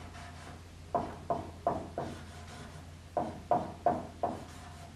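Dry-erase marker strokes on a whiteboard as short tick marks are drawn around a gauge dial: two runs of four quick strokes, about three a second, over a low steady hum.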